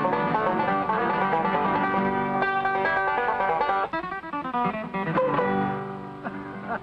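Bluegrass music, picked guitar with banjo, thinning out partway through and dying away to the tune's last notes near the end.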